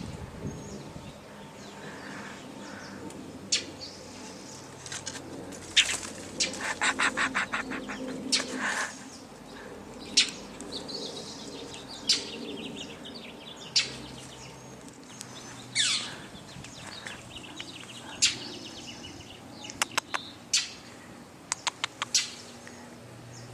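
Mockingbird fledgling's begging calls: short, harsh screeches at irregular intervals, with a quick run of them about a quarter of the way in, as the young bird calls for food.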